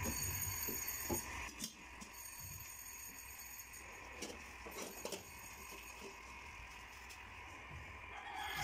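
Metal ladle stirring and scraping through thick laing in an aluminium wok, with a few light clinks, then a stainless steel lid set down on the wok near the end.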